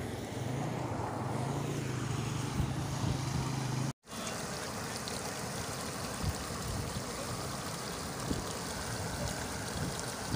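Muddy floodwater rushing steadily over flooded ground and around grass clumps. There is a low rumble in the first few seconds, and the sound cuts out for a moment about four seconds in.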